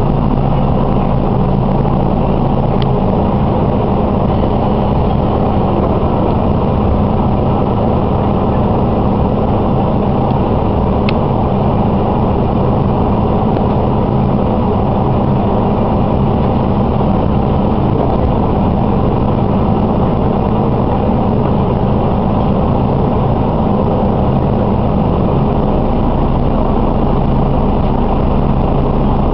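Diesel railcar's engine idling steadily while the train stands at a station, heard from inside the car.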